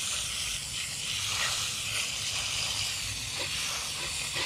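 Garden hose trigger spray nozzle running a slow stream of water onto the soil of a plant pot, where it pools: a steady hiss of running water.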